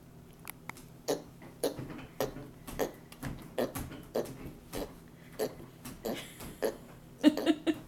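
A toddler making piggy noises: a string of short, breathy bursts, roughly two a second, ending in a quicker cluster of short voiced grunts.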